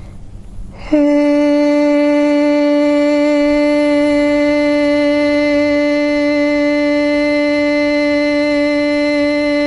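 A woman's voice toning a long, sustained 'eh' vowel at one steady, fairly high pitch, starting about a second in and held without a break: the vowel chanted for the sixth (eyebrow) chakra.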